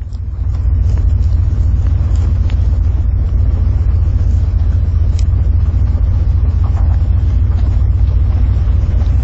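Old Ford F-250 dually truck under way: a steady, deep engine and road rumble that swells during the first second, then holds even.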